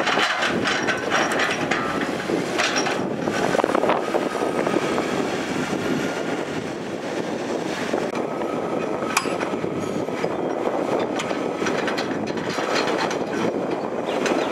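Heavy diesel construction machinery, dump trucks and an excavator, running with a steady rattling noise and a few sharp clanks, the loudest about nine seconds in.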